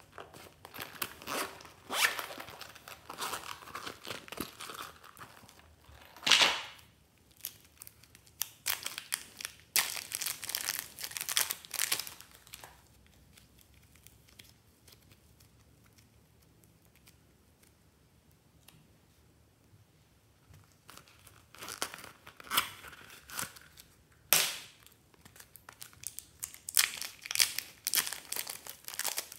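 Clear plastic wrap crinkling and tearing as it is peeled off soft modelling clay, in bursts, with a quiet stretch in the middle while the clay is squeezed.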